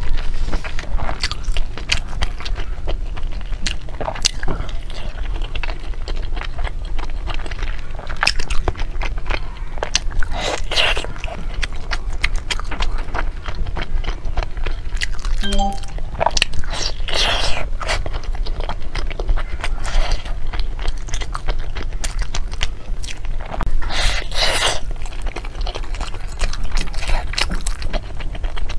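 Close-miked eating of a glutinous rice dumpling (zongzi) with a browned crust: steady crunching, wet mouth clicks and chewing, with three louder bites spread through it.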